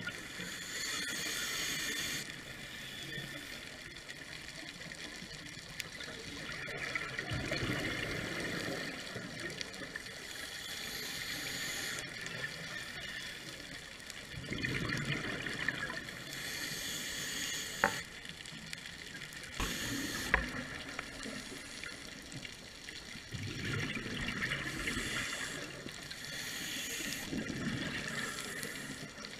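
Scuba diver breathing through a regulator underwater: hissing inhalations alternate with bubbling exhalations in a slow, repeating cycle. Two sharp clicks come about two-thirds of the way through.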